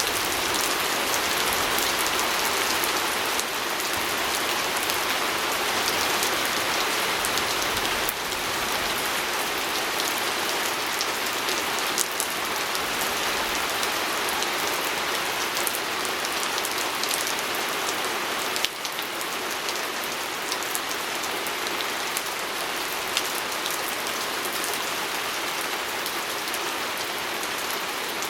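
Steady rain falling on a window pane: an even hiss of rain with scattered sharp drop ticks.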